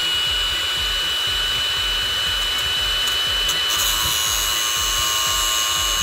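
Cordless angle grinder running at full speed with a steady high whine, its disc grinding the end of a steel grease gun barrel.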